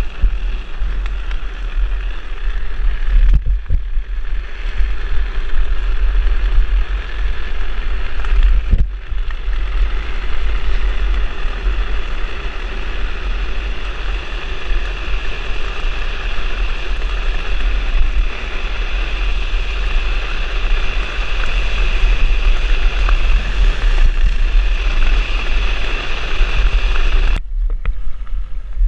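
Heavy wind rumble on the camera microphone at downhill speed, over the steady rush of drift-trike wheels rolling and sliding on asphalt. The sound breaks off and resumes abruptly a few times.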